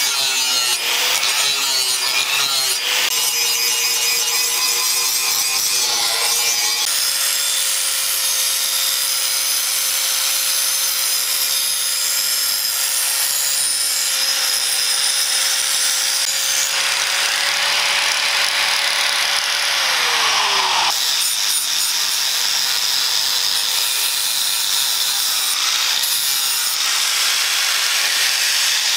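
Electric angle grinder running, its abrasive and sanding discs grinding the faces of a steel axe head: a steady motor whine under a hissing scrape of disc on steel. The motor's pitch drops once about two-thirds of the way through.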